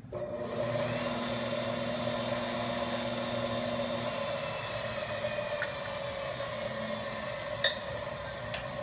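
Electric motor of a 220-volt shop machine switched on and running at a steady hum and whine on a power test of its freshly wired cord and plug: it starts and runs, so the wiring is correct. A couple of light clicks come in the second half.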